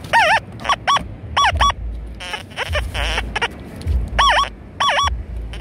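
XP Deus II metal detector giving short, warbling target tones, about seven of them. Each beep's pitch dips and comes back up, and they repeat as the coil is swept back and forth over a buried target in the sand. A low rumble runs underneath.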